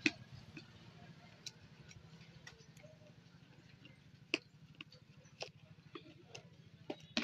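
Scattered light clicks and taps of fingers handling a cardboard smartphone box, picking at its seal and sliding the sleeve off, over a steady low hum.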